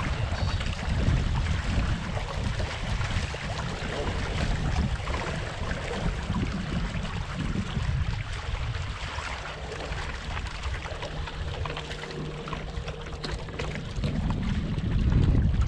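Wind buffeting the GoPro microphone and water rushing past a small sailboat under way, a steady noise with a heavy low rumble that eases a little in the middle. A faint low hum runs through the middle part.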